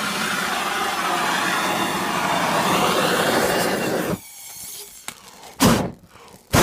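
Handheld gas torch flame rushing steadily while heating the engine's crankshaft, shut off abruptly about four seconds in; then a sharp knock from a hammer striking a punch on the shaft's half-moon key.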